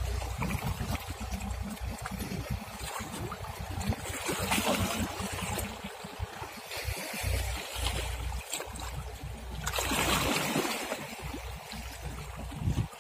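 Water waves lapping and splashing over a low rumble that comes and goes; the noise swells about four seconds in and again around ten seconds.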